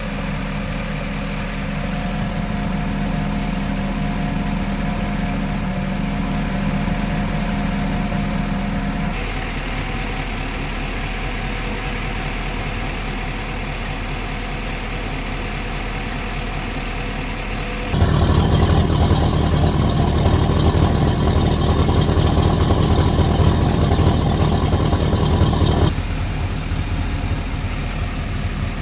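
Marine engine running steadily at idle, freshly fitted with new intake manifold and exhaust riser gaskets. About 18 s in it gets louder and deeper for some eight seconds, then settles back.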